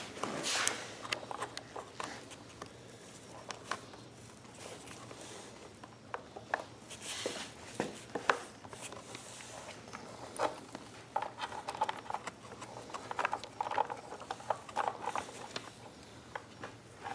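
Hands working wiring and parts inside a small portable generator during an install: irregular light clicks, taps and rustles of wires and plastic being handled.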